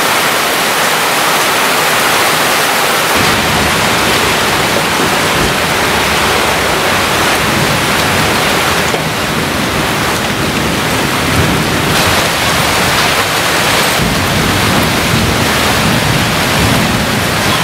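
Heavy monsoon rain pouring down steadily. From about three seconds in, a low rumble comes and goes beneath it.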